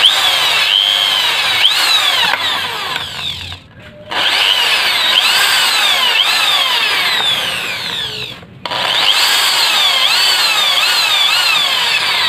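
INGCO ID6808 13 mm corded impact drill, in plain drilling mode with a 3.2 mm bit, boring into steel angle iron. The motor runs at full speed under load and the bit against the steel gives a repeated falling screech. The drilling stops briefly twice, about four seconds in and again about eight and a half seconds in.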